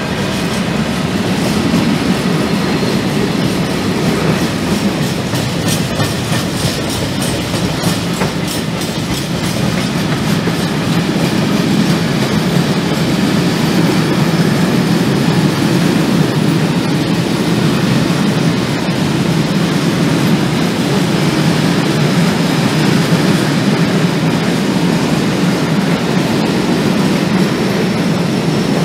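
Freight train of covered hopper wagons rolling past at close range: a steady rumble of steel wheels on the rails, with a run of sharp clicks in the first part.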